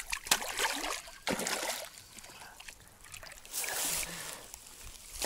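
A hooked zander thrashing and splashing at the water's surface as it is drawn in to the bank, in several short splashes, the longest about three and a half seconds in.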